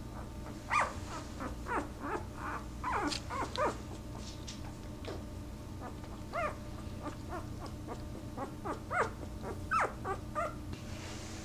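Newborn Podengo puppies whimpering and squeaking: a string of short, high cries, many sliding down in pitch, in two clusters with a brief lull between.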